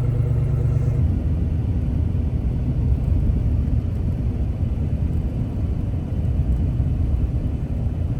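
Vehicle engine rumble: a steady, even engine hum that changes abruptly about a second in to a rougher, noisier low rumble.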